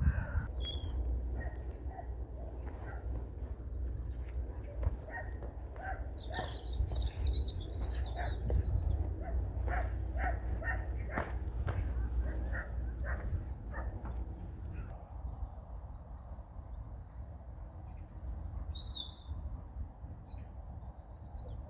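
Small songbirds singing, a run of quick, high, trilled phrases repeated over and over, over footsteps and a steady low rumble.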